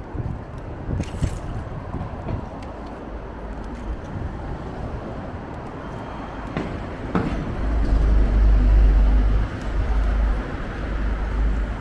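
City street traffic noise heard while riding along the road, with a deep rumble that swells up about eight seconds in and lasts to near the end, plus a few light clicks and rattles.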